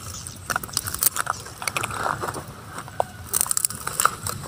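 Young macaques handling dry grass, twigs and a thin plastic cup close to the microphone: irregular crackles, rustles and sharp clicks, busiest about three seconds in.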